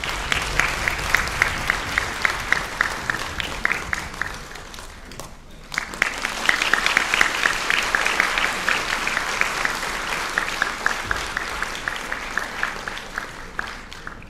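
Audience applauding, with claps close to the microphone at a steady pace of about four a second. The applause dips briefly about five seconds in, swells again, and fades near the end.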